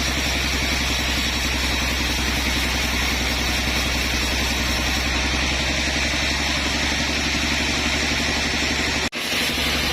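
Sawmill machinery running steadily with an engine-like drone. It briefly cuts out near the end and picks up again unchanged.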